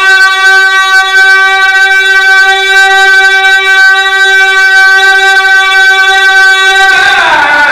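A man's amplified voice holding one long, steady sung note, breaking off about seven seconds in into a falling chanted line.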